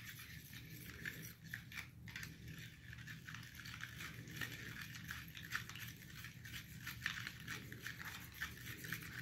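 Plastic spoons stirring borax powder into water in plastic cups: faint, irregular clicking and scraping of spoon against cup.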